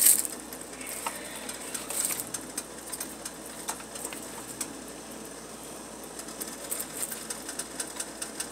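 A stainless steel pot of soup simmering on the stove, giving a steady hiss with irregular small ticks and pops; a sharper clink comes right at the start.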